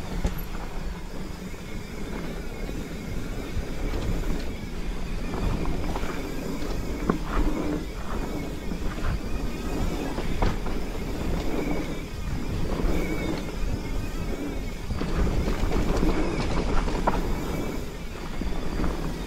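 Mountain bike riding fast down a dirt trail: a steady rush of wind on the microphone and tyre noise on dirt, with scattered clicks and knocks from the bike rattling over bumps.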